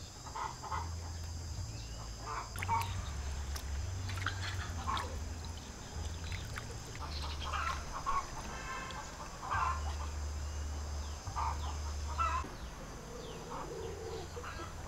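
Poultry clucking and calling in short, scattered calls, with light knocks and scrapes from a knife cleaning chicken heads in a metal bowl.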